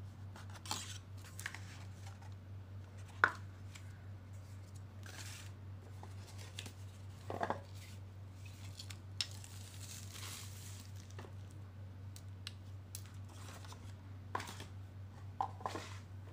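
Handling noise as a plastic dash cam, its mount, cable, box and paper manual are picked up and set down on a tile floor: scattered light taps, clicks and paper or cardboard rustles, the sharpest click about three seconds in. A steady low hum runs underneath.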